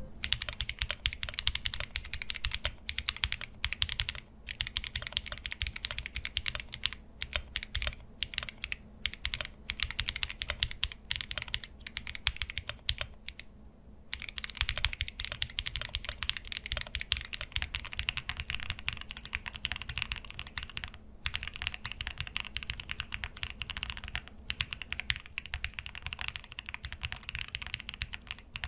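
Mechanical keyboard sound test: a 75% custom mechanical keyboard typed on steadily, a fast, continuous run of key clacks, with a brief pause about halfway through.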